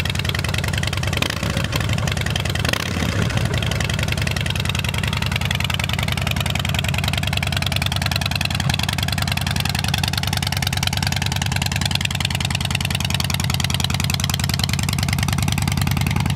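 Harley-Davidson Dyna Street Bob's Twin Cam V-twin idling steadily through Vance & Hines Short Shots exhaust: a really loud, even rumble.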